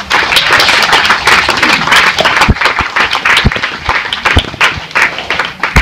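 Audience applauding steadily, a dense patter of many hands clapping with a few louder single claps standing out.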